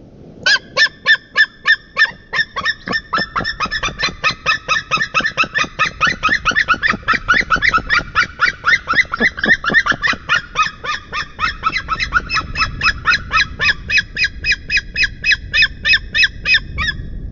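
Pair of white-tailed eagles calling together in a long, very loud series of repeated high notes. The notes come about three a second at first and faster after about two seconds, then stop suddenly near the end.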